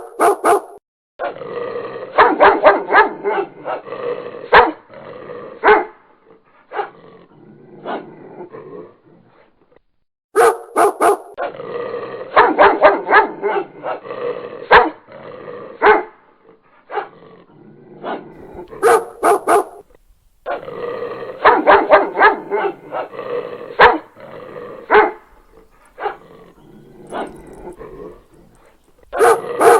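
Dog barking in rapid volleys, loud and sharp, with quieter stretches between them. The same run of barks repeats about every ten seconds, as a looped sound effect.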